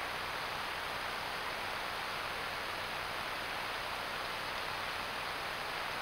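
Steady, even hiss of a trail camera's microphone and recording circuit, with no calls or other events standing out.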